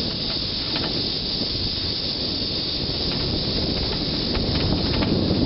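Wind rushing over the microphone while riding a bicycle along a paved path: a steady low rumble with an even hiss, and a few faint clicks, growing a little louder near the end.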